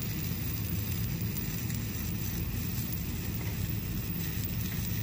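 Stick-welding arc crackling steadily as a 7018 electrode lays the fill pass on a flange-to-reducer joint.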